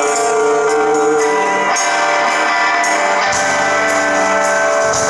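Rock band playing live, with sustained guitar chords over a steady beat of percussion strokes.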